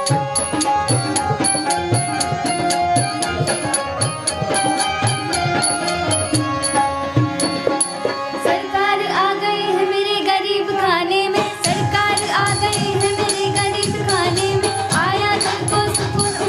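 Indian devotional bhajan music: tabla playing a steady rhythm under held tones, with a gliding, ornamented melody line coming in about eight and a half seconds in.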